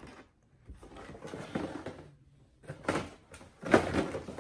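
A few short knocks and rustles, about four over the span, the loudest near the end, as a person moves about close to the microphone.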